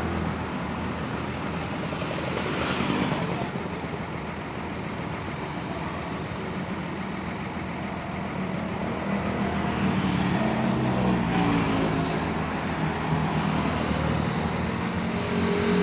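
A coach bus's engine runs at low speed, with a short hiss about three seconds in. The engine grows a little louder and changes pitch in the second half.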